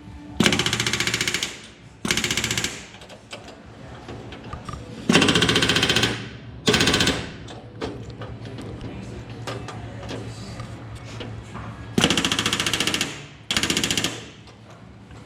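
Pneumatic rivet gun hammering aluminium rivets in six short bursts of rapid blows, each about a second long, coming roughly in pairs.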